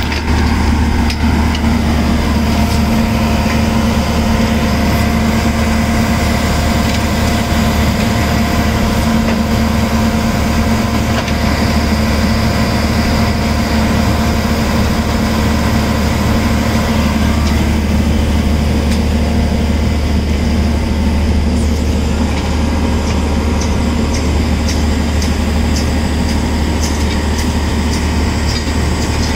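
Steady hum of the power unit of a Holland mobile flash butt welding rig, running evenly, with faint regular ticking in the last few seconds.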